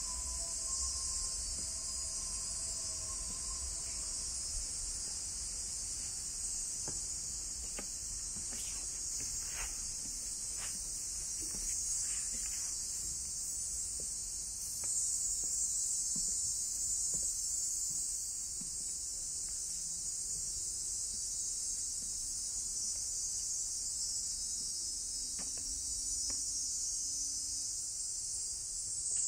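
Dense chorus of insects, a steady high-pitched drone that swells slightly about halfway through.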